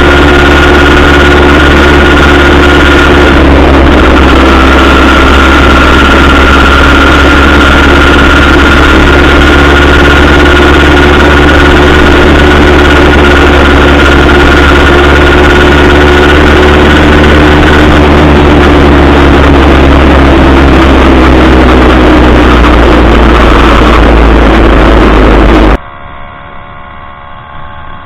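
An 80cc Zeda Dio two-stroke motorized-bicycle engine running loud and steady, its note easing slightly lower a little past halfway. It cuts off abruptly near the end, leaving a much quieter hum.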